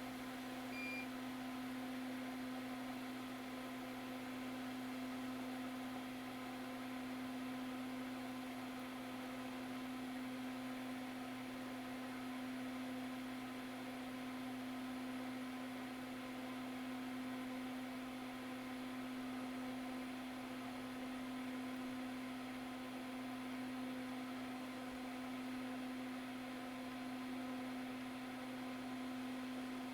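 Soldering fume extractor fan running: a steady hum with one strong low tone over an even airy hiss.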